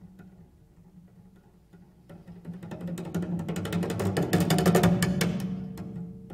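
Solo cello playing contemporary music: a quiet held low note, then from about two seconds in a rapid stream of sharp, percussive strokes that builds in loudness and eases off near the end.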